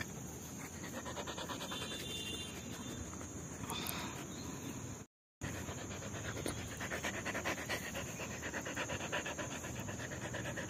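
Siberian husky panting close to the microphone in quick, even breaths. The sound cuts out for a moment about halfway through.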